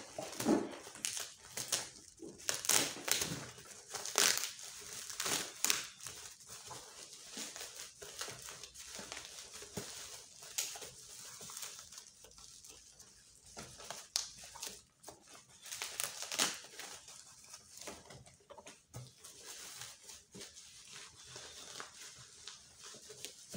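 Plastic wrapping crinkling and rustling in irregular bursts as it is handled and cut open with scissors, loudest in the first few seconds and again about two-thirds of the way through.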